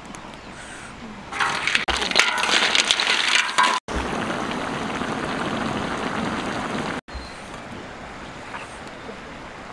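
Snails simmering in broth in a large wok over a wood fire: a loud crackling spell about a second in, then a steady bubbling hiss that breaks off abruptly, leaving a quieter hiss.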